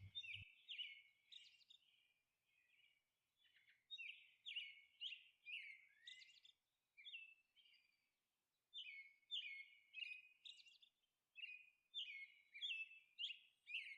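Faint bird chirping: quick short chirps, each dropping in pitch, in runs of several with brief pauses between.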